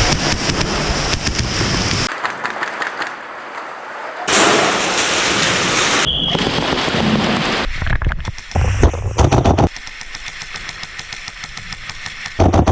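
Airsoft guns firing in rapid strings of shots, the sound changing abruptly several times, loudest about 8 to 10 seconds in and again at the very end.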